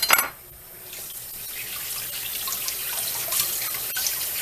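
Kitchen tap running into a sink, with a sharp knock right at the start and small splashes as the water flow builds.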